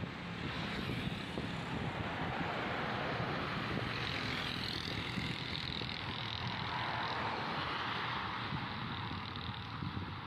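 Steady rushing noise of wind on the microphone mixed with road traffic, a little louder through the middle.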